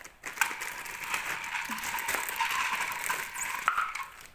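Small battery motor and plastic gears of a motorized Thomas & Friends TrackMaster toy train running with a steady whir and light clicking. It starts about half a second in and stops shortly before the end.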